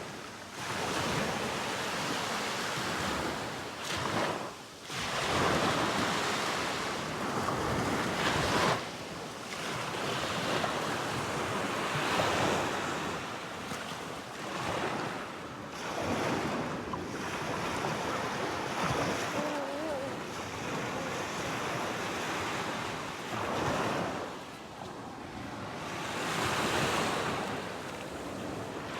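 Caspian Sea surf washing onto the shore, the rush swelling and falling every few seconds, with wind buffeting the microphone.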